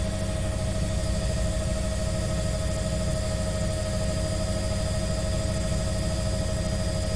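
Helicopter in flight heard from on board: a steady engine and rotor drone with a constant whine over a deep rumble.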